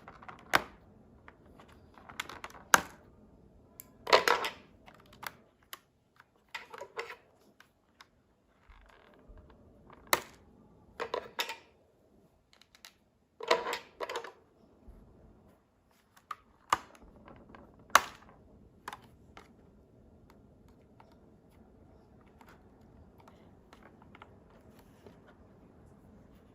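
Hands unpacking a doll from its box: scattered clicks, taps and short crinkling, scraping bursts of plastic and cardboard packaging, irregularly spaced and thinning out in the last third.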